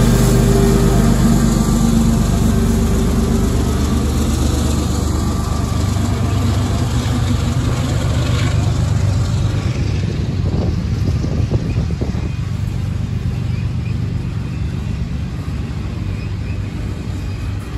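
Freight train passing: the Union Pacific diesel-electric locomotives' engines drone for the first few seconds, then give way to the steady noise of double-stack container cars rolling on the rails, with a few wheel clicks about ten to twelve seconds in, slowly fading.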